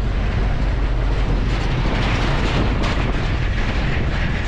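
Heavy cargo truck passing close by on a gravel road, its engine and tyres giving a steady loud rumble, mixed with wind on the microphone.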